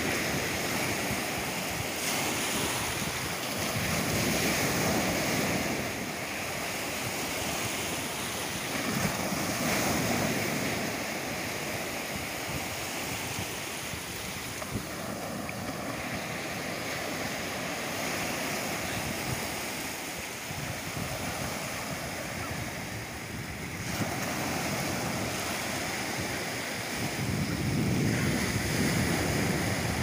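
Small sea waves breaking and washing up over a sandy beach at the water's edge. The surf swells and eases every few seconds.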